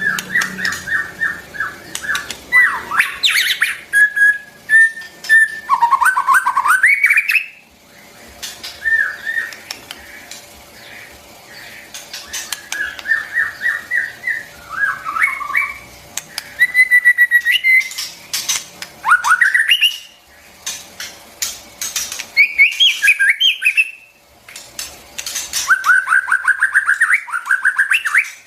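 White-rumped shama singing: varied whistled phrases of rapid repeated notes and quick rising and falling glides, with short pauses between phrases.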